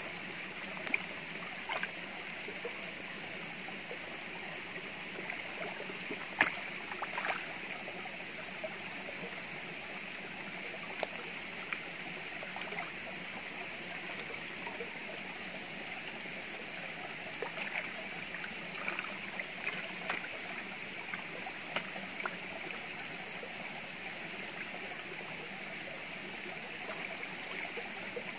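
Shallow stream running steadily over rock, with scattered splashes and knocks as hands wash raw meat in the water; the loudest splash comes about a quarter of the way in.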